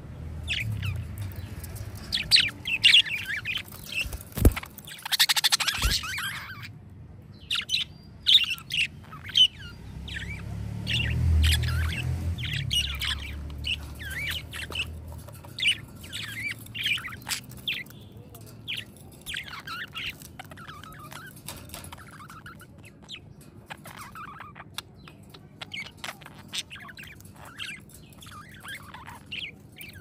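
A flock of budgerigars chirping and warbling, many short overlapping chirps and squawks running on without a break. A low rumble rises under them around the middle and fades.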